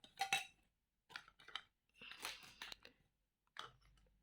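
Faint crinkly rustling and a few light clicks in short spells, as replica gold bangles are handled.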